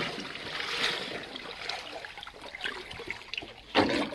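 Mountain stream water running steadily, with a few faint knocks and one short, louder splash-like noise near the end.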